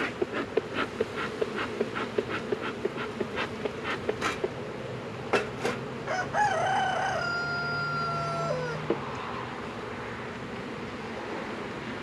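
Bee smoker's bellows pumped in a quick run of puffs, about three a second, over the steady hum of honeybees around an open hive. About halfway through a rooster crows once, a call of two to three seconds with a falling end.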